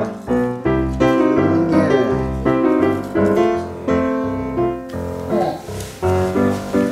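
Background piano music in a light, bouncy silent-film style, with short rhythmic notes.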